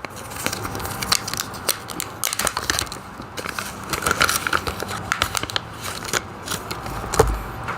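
Small lash scissors and their packaging being handled: irregular crinkling with many small clicks, and a low thump near the end.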